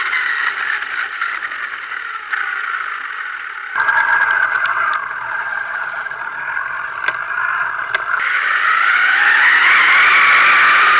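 RC buggy running fast on gravel, its motor whining. The pitch sags, then climbs steadily as it speeds up near the end. Gravel rattles and scrapes under the tyres, with a few sharp ticks of stones hitting the chassis.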